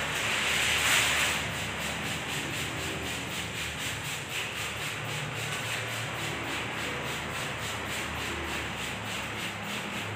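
Plastic window tint film being peeled off a glass pane, the sheet rustling as it comes away. The rustle is loudest for about the first second, then goes on softer and steady.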